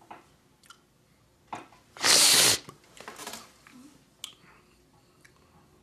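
A loud hissing burst of breath, about half a second long, two seconds in, then a softer one about a second later, with a few faint clicks.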